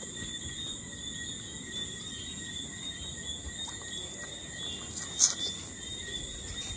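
Steady, high-pitched insect chorus, a continuous trill. A brief sharp sound stands out about five seconds in.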